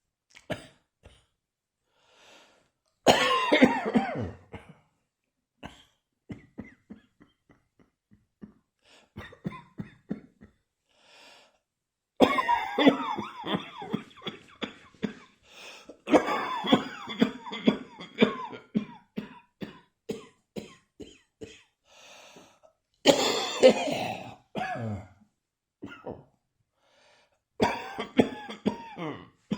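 Coughing in repeated bouts: one about three seconds in, two longer fits around the middle, another about two-thirds through and one near the end, with small clicks and breaths in the quieter gaps.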